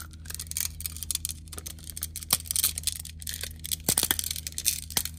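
Split ring pliers working a stiff, heavy-duty #7 steel split ring onto a hard plastic lure's eyelet: a dense run of small metallic clicks and scrapes, with a few sharper clicks near the end.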